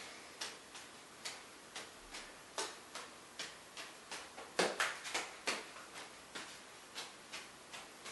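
Juggling balls being caught and thrown from hand to hand: a steady run of short taps about two or three a second, a few of them stronger around the middle.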